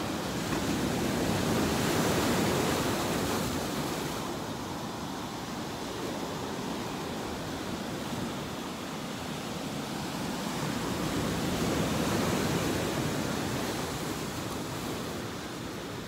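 Sea waves washing onto a sandy shore, a steady rush that swells twice, about two seconds in and again near twelve seconds.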